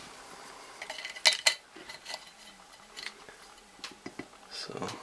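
Metal parts clinking on a workbench as a gasket is laid over a port of a cast-iron exhaust manifold. A cluster of sharp clinks comes about a second in, followed by a few lighter, scattered taps and a duller knock near the end.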